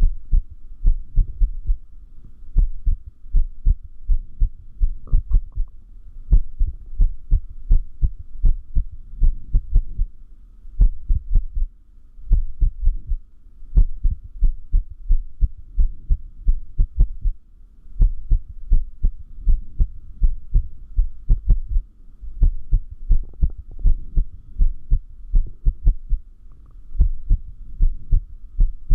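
A human heartbeat beating in low, dull thumps, often in pairs, with an irregular rhythm and a few longer pauses between beats: an arrhythmia.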